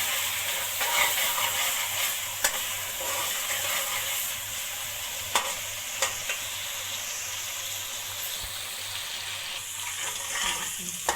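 Garlic-ginger paste and green onions frying in hot oil in a kadai: a steady sizzle, with a few sharp clicks as it is stirred.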